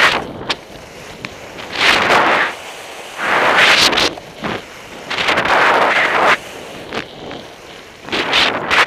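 Skis turning on packed snow, the hiss of the edges swelling with each turn about four times, over wind buffeting the microphone.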